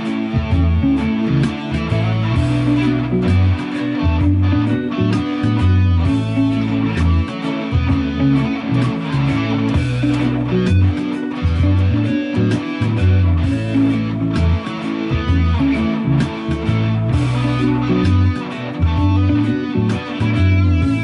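Electric guitar played along to a reggae backing track, with a bass line moving underneath.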